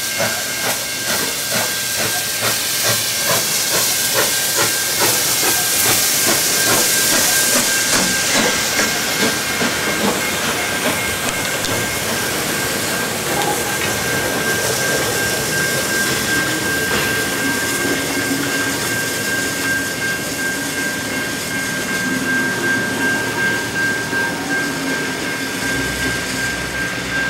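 NSW 32 class steam locomotive 3237 passing with a hauled train, its exhaust beating in a steady rhythm and steam hissing loudest about six to eight seconds in. The beats then fade into the rumble of the passenger carriages rolling past, under a steady high tone.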